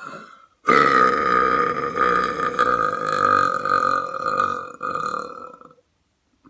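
A person's long, loud belch lasting about five seconds, starting nearly a second in and held steady at one pitch before trailing off. A brief fainter sound comes just before it.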